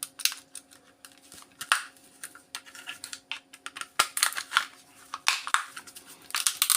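Flathead screwdriver prying and wiggling at a plastic power-adapter case: a run of irregular sharp clicks and cracks as the casing is worked loose.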